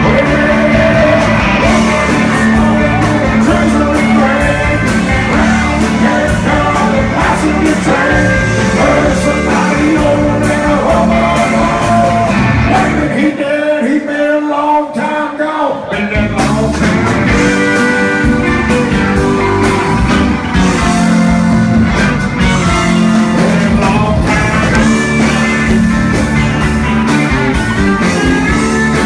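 Live country band playing, with a male singer, pedal steel, electric and acoustic guitars, bass and drums. About thirteen seconds in the bass and drums drop out for a couple of seconds, then the full band kicks back in.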